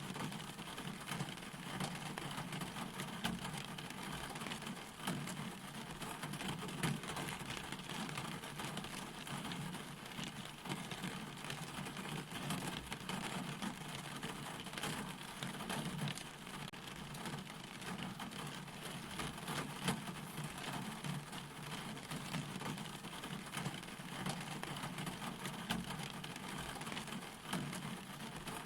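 Steady rain falling, a continuous hiss with many small drop ticks throughout.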